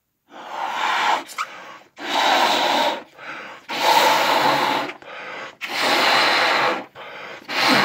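A man blowing up a party balloon by mouth: four long, hard puffs of breath into the balloon, each followed by a short breath drawn in, with a fifth puff starting near the end.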